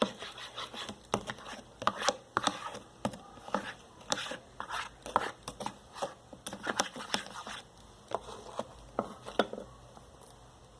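Glue and soap activator being stirred into slime in a container: irregular clicks and taps, several a second, that die away about a second before the end.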